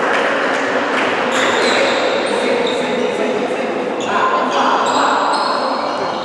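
Echoing sports-hall din of voices on the court and benches, with short, high squeaks of sneakers on the wooden floor from about a second in, more of them from about four seconds in.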